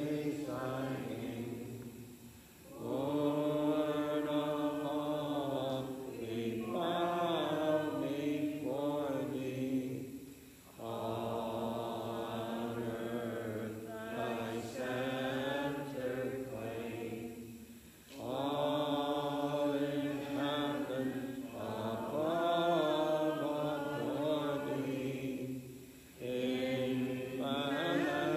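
Unaccompanied singing of a slow, chant-like closing hymn, in long phrases of about eight seconds with short breaks between them.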